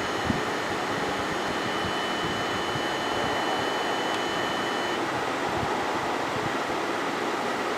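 Steady rushing background noise with a faint high-pitched whine that cuts off about five seconds in, and a light click just after the start.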